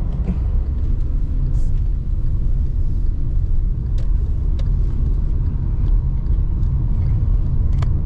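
Car driving along the road: a steady, loud low rumble of engine and road noise, with a few faint clicks.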